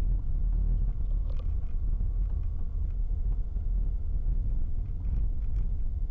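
Steady low rumble of a car driving slowly, picked up by a dashcam inside the cabin, with a few faint clicks about a second in and again near the end.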